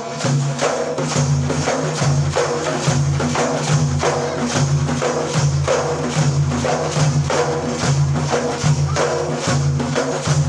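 An instrumental break between sung verses: a frame drum with jingles beats a steady rhythm over low repeating tones. The singing voice comes back in near the end.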